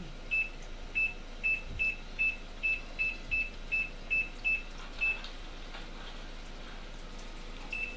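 Sanken AW-S807 top-loading washing machine's control panel beeping: a quick run of short, identical high beeps, about two to three a second, that stops about five seconds in, with one more beep near the end.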